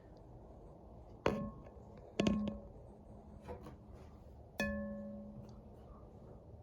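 Ceiling fan pull-chain switch clicking three times, with a fainter fourth click, each click followed by a short ringing tone from the metal fan housing.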